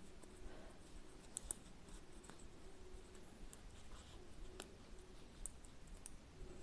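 Faint, scattered small clicks and handling noise from hands working a pair of screw-back earrings loose from their tangled packaging.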